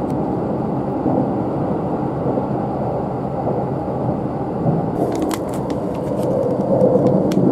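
Steady rumble of a running train's passenger cabin. From about five seconds in, paper rustling and light clicks as the paper-wrapped bento box is handled and lifted off the plastic tray table.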